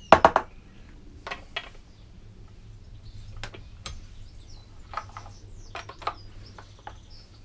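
Clicks and clatters of a Stihl chainsaw being handled on a workbench, its parts knocking, with a loud cluster of clatters right at the start and single clicks scattered after.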